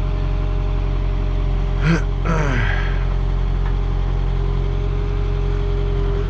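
JCB 3CX Compact backhoe's diesel engine running steadily, with a brief knock and a quickly falling tone about two seconds in.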